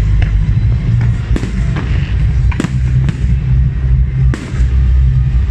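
Fireworks display: aerial shells bursting in sharp bangs about once a second. Underneath runs loud music with a heavy, steady bass.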